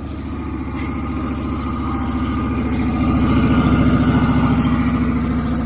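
Engine of a portable band sawmill running steadily under load while the band blade cuts through a log, growing louder about three seconds in.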